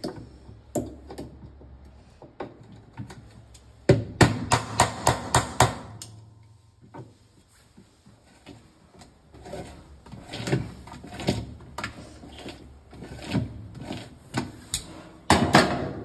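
Metal hand tools knocking and scraping inside a top-load washing machine's plastic agitator while working at the rusted bolt at its base: a quick run of about eight sharp clicks about four seconds in, then scattered knocks and scraping, with another cluster of clicks near the end.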